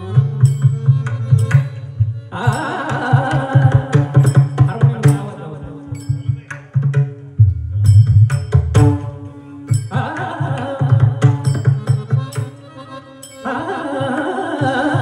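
Abhang devotional singing with pakhawaj accompaniment. Deep drum strokes run throughout, and the sung voice comes in about two seconds in, drops out for a drum-led stretch in the middle, then returns around ten seconds and again near the end.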